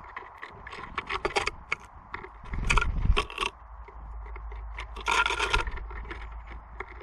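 Small birds such as tits at a bird feeder, pecking and scratching: a run of quick taps and scrapes on wood, with louder scratchy rustles about a second in, around three seconds and about five seconds in.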